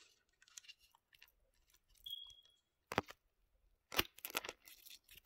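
9mm cartridges being pressed into a nearly full translucent polymer Stribog 30-round magazine: faint clicks and scrapes of brass against plastic as the spring resists. There is a sharper click about three seconds in and a quick cluster of clicks about a second later.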